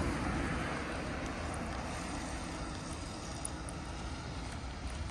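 Road traffic noise: a car driving past on the street, its sound easing away slowly.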